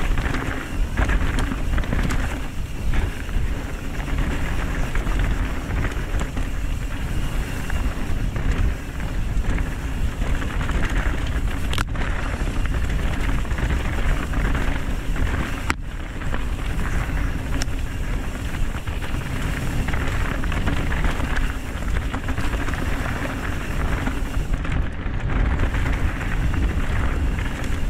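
Mountain bike ride noise: a steady rush of wind on the camera microphone mixed with tyre and frame noise, with two sharp clicks about 12 and 16 seconds in.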